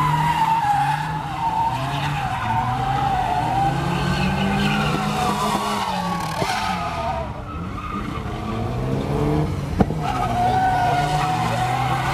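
A Volvo estate car doing donuts: its engine is held at high revs, the pitch rising and falling as the throttle varies, while the rear tyres squeal and skid on the asphalt. A single sharp crack stands out near the end.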